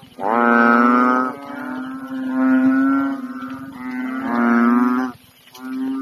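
Large, fully inflated frogs calling in a pond: three long, cow-like croaks of about a second each, roughly two seconds apart, over a steady low drone from other frogs calling.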